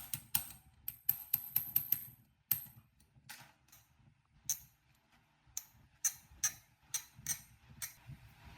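A series of sharp, light taps with a high ring, about four a second for the first two seconds, then fewer and more spaced out after a short pause.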